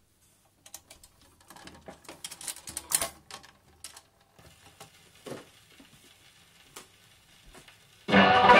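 Record changer of a 1955 Regentone AGR79 radiogram cycling: an irregular run of mechanical clicks and clatter, then a few single clicks as the pickup settles. Near the end, the record starts playing with loud music.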